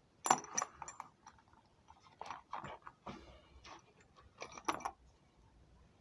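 Small metal lathe tooling and parts clinking and knocking against each other as they are handled in a box: irregular sharp clinks, a cluster in the first second and more around two and a half and four and a half seconds in.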